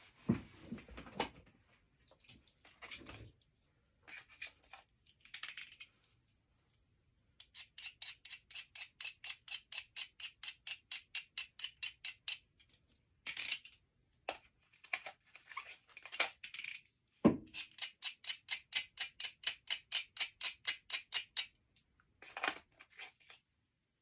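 A hard pastel stick scribbled back and forth on drawing paper in two long runs of rapid scratchy strokes, about five or six a second, with shorter scrapes between them and a couple of sharp knocks.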